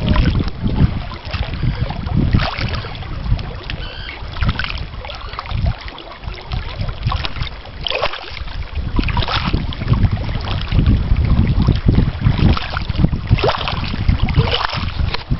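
Wind buffeting the microphone in an uneven low rumble that rises and falls in gusts, with small waves lapping against the shore rocks.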